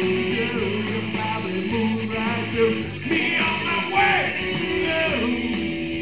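Live rock band playing, with a man singing over it in drawn-out, sliding notes.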